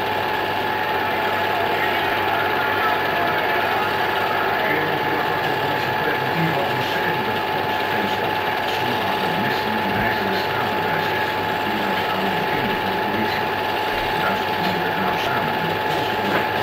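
Steady mechanical whirr and clatter of a running film projector, with a constant whine, and faint voices underneath.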